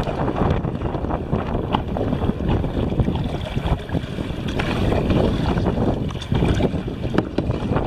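Wind buffeting the microphone out on the water, a loud, steady rumble, with a few brief splashes or knocks, likely from kayak paddling.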